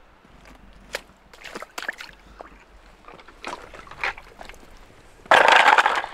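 Puddle water splashing and sloshing as a muddy toy tractor is swished in it to wash it clean: small splashes at first, then a louder splash lasting under a second about five seconds in.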